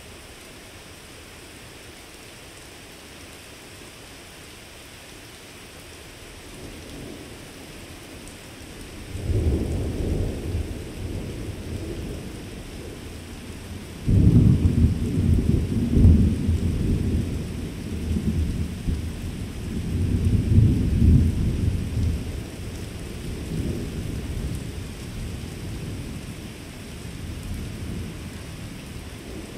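Thunder rolling over steady rain. After a stretch of quiet rain hiss, a low rumble swells up about a third of the way in; about halfway through a louder peal starts suddenly and rolls on in waves for several seconds before slowly fading.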